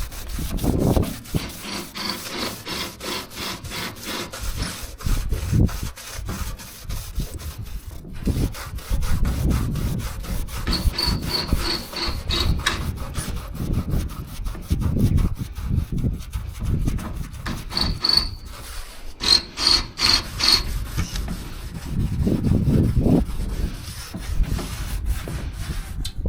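Sandpaper rubbed by hand over the painted metal bodywork of a Scania 143H truck, repeated back-and-forth scraping strokes that swell and fade in groups, prepping the surface for basecoat.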